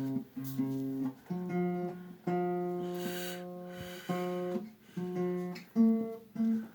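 Acoustic guitar strummed in a run of chords, a new chord every half second to a second with several changes of pitch, played in a small room deadened with sound foam and bass traps.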